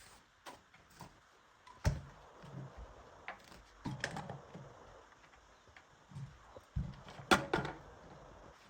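Scattered knocks and clicks of hard objects being handled and set down, the loudest about two seconds in and again near the end.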